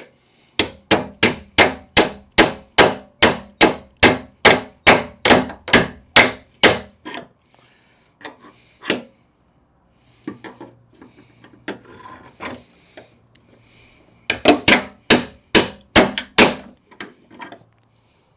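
Hammer blows on a punch, driving a seized door hinge pin out of a Jeep XJ door hinge: a fast run of about twenty strikes, a pause with scattered lighter knocks and handling noise, then another quick run of about eight strikes.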